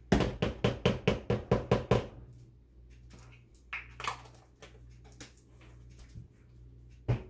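A blender's plastic jar rapped against the counter about a dozen times in quick succession for about two seconds. A few small clicks follow as a lid is screwed onto a glass jar, then one more knock near the end.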